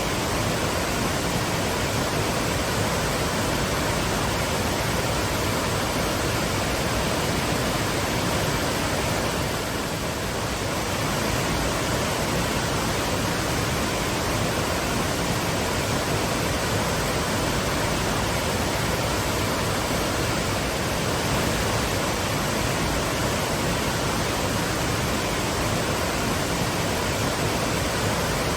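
Twin waterfalls pouring with a steady, full rush of falling water.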